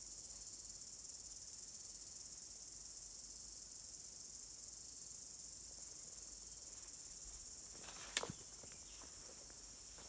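A steady, high-pitched buzzing chorus of forest insects, with one sharp knock about eight seconds in and a few faint ticks after it, after which the chorus is a little quieter.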